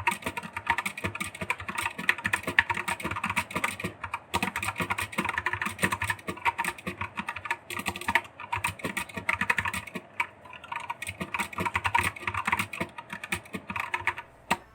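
Mechanical keyboard with freshly swapped switches being typed on quickly and continuously in a sound test: a dense, irregular run of key clicks with a few brief pauses, stopping just before the end.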